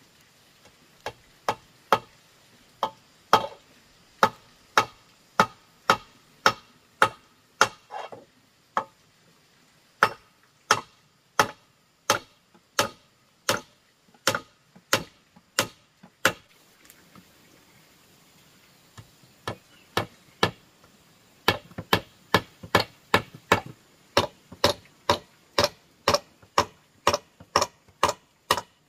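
Sharp, evenly spaced blows of a hand tool, about two a second. They break off for a few seconds just past the middle, start again with a few lighter hits, then settle back into a steady run.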